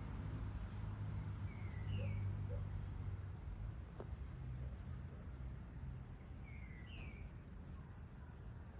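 Evening insects, crickets, keeping up a steady high-pitched trill, over a low distant rumble that fades. A bird gives a short pair of falling chirps twice, about two seconds in and again near the end.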